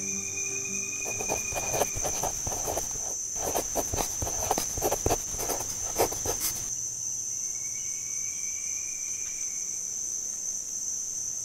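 Insects chirring in a steady, high-pitched drone, with a faint thin whistle near the start and again later. For several seconds in the middle there is a run of irregular clicks and rustles, which then stop suddenly.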